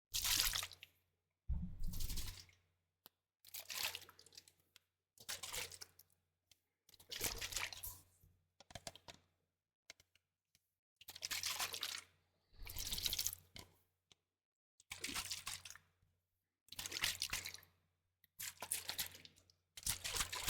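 Liquid sounds made close to the microphone: about a dozen short wet bursts, one every second and a half to two seconds, with silence between them.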